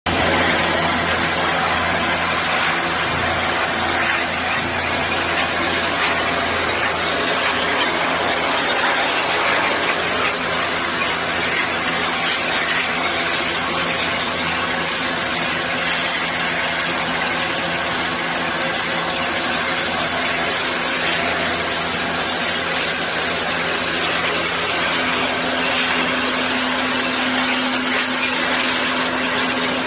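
A motor-driven machine running steadily under a constant loud hiss, with a new steady hum joining about 25 seconds in.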